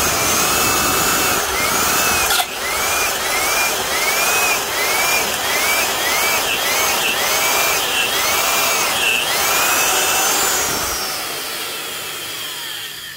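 Milwaukee Magnum Hole Shooter corded drill boring into a wood block, its motor whine rising and falling in pitch about twice a second under load, with the impact chuck holding the bit without slipping. Near the end the trigger is released and the motor winds down.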